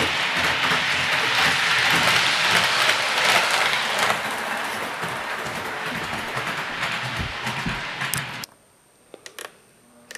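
Hornby model train running along the track, a steady rushing rattle of wheels on rail with light clicks. It cuts off abruptly about eight and a half seconds in, leaving a much quieter stretch with a few faint clicks.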